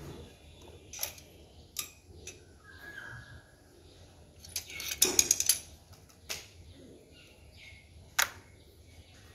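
Metal hand tools and sockets clinking against each other and the concrete floor in a few short, sharp taps, with a quick rattling cluster of clinks about five seconds in.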